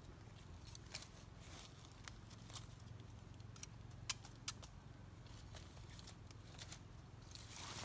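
Faint scattered clicks and crackles of bamboo shoots and dry bamboo leaf litter being handled, with a machete in hand, a few sharper clicks about halfway through.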